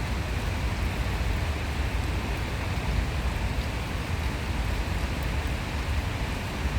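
Steady outdoor rushing noise with a low rumble underneath, unchanging and without distinct events.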